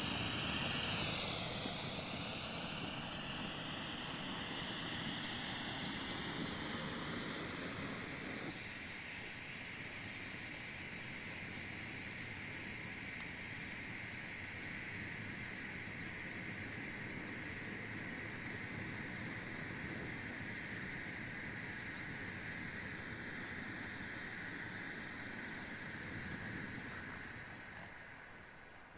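Hooligan blue flare, a hand-held pyrotechnic torch, burning with a steady hiss; its pitch dips and climbs back in the first couple of seconds, then holds, and the hiss fades away near the end.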